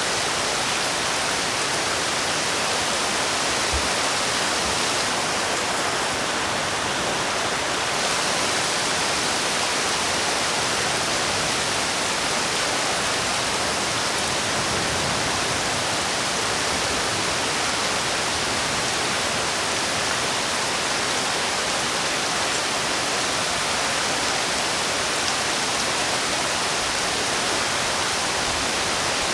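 Steady heavy rain, an even hiss.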